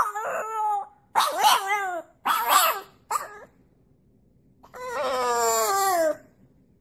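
French bulldog puppy howling: four short yowls in quick succession, then after a pause one longer howl that drops in pitch as it ends.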